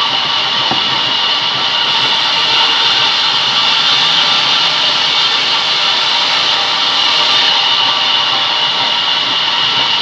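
Sawmill band saw running and cutting a rain tree plank: a loud, steady whine and rasp of the blade in the wood. The sharper high hiss fades for the first couple of seconds and again near the end.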